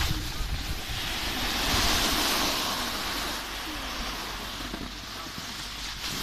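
Snowboard sliding over packed snow, a rushing hiss that swells about two seconds in and then eases, with wind buffeting the microphone underneath.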